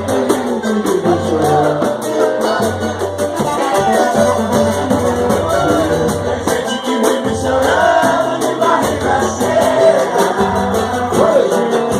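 Samba group playing a song: a singer's voice over a moving bass line and a steady, fast percussion rhythm.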